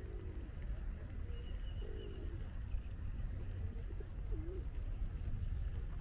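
A pigeon cooing in short low phrases, three times, over a steady low rumble.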